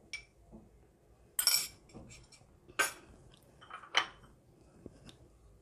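A metal spoon clinking and scraping against a small plastic cup: a handful of scattered taps, the longest scrape about a second and a half in, a sharp tap about four seconds in.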